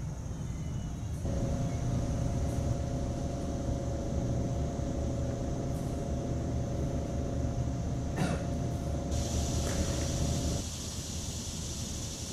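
Steady low rumble of outdoor background noise. A steady mid-pitched hum comes in about a second in and cuts off abruptly near the end, over a faint high hiss, with one brief click just past the middle.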